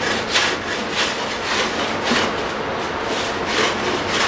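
Block plane shaving the edge of an edge-grain cedar plank in a series of short strokes, each a brief hiss of the blade cutting wood, as the bandsawn edge is trued to the marked line.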